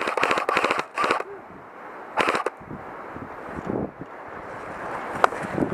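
Airsoft guns firing in rapid bursts of sharp cracks: a long burst at the start, short ones around one and two seconds in, and a single crack near the end.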